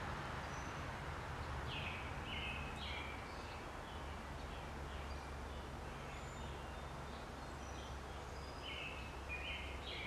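House sparrows chirping: short, repeated cheeps in a quick run about two seconds in and another near the end, with fainter chirps between. A steady low rumble runs underneath.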